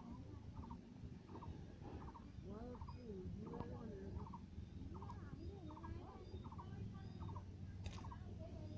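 Faint bird calls, short clusters of quick notes repeating about twice a second, over a low steady hum.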